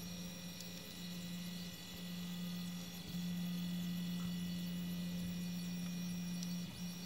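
Anet A8 3D printer printing: its stepper motors give a steady low hum that shifts pitch briefly about three seconds in and again near the end, a little louder after the first change, over the steady whir of its cooling fans.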